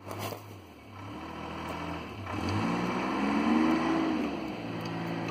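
An engine running steadily, its hum rising in pitch and growing louder a little past the middle, then easing back down.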